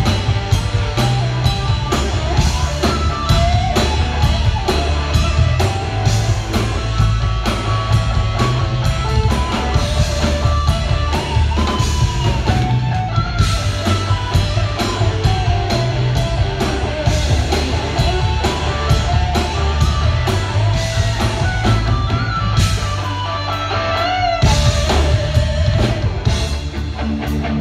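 Live rock band playing loud: electric guitars over a drum kit in an instrumental passage, with a lead guitar line bending in pitch.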